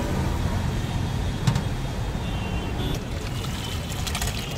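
Steady low rumble of road traffic. Near the end, thick curry pouring and splashing from a steel vessel into a large pot.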